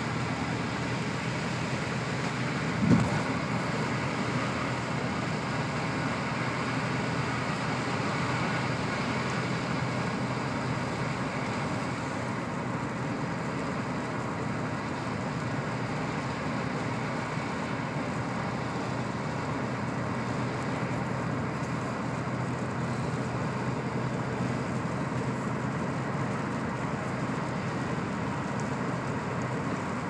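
Steady road and engine noise inside a car's cabin, driving at highway speed on a snow-covered road, with a low steady hum under it. A single short thump about three seconds in.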